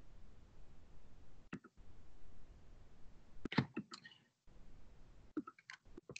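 Near-quiet video-call audio: a faint steady hiss with a few scattered soft clicks, one about one and a half seconds in and a short cluster from about three and a half seconds on.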